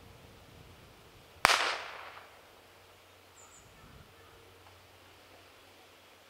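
A single blank gunshot about a second and a half in, a sharp crack with a trailing echo: the shot that marks a dummy throw for the retriever in a field trial working test.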